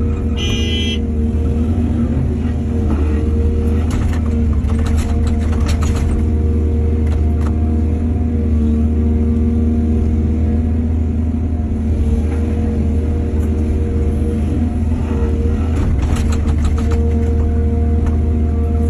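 Excavator's diesel engine running steadily under load, a constant deep drone. A few short bursts of clatter come about four to six seconds in and again near the end, with a brief high-pitched tone right at the start.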